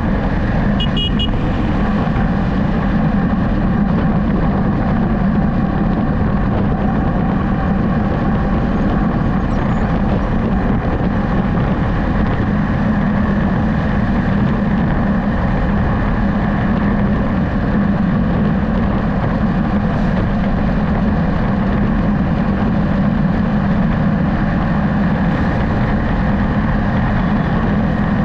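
Steady road noise from a vehicle driving at speed: engine hum, tyre and wind noise without a break. A brief high-pitched tone sounds about a second in.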